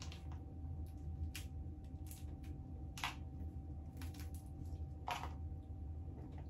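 Crab shells being picked apart by hand and eaten: scattered short clicks and cracks, roughly one a second, the loudest about three and five seconds in, over a steady low hum.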